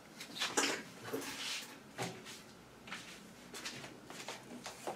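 Faint scattered rustles and light clicks of handling, with no machine running.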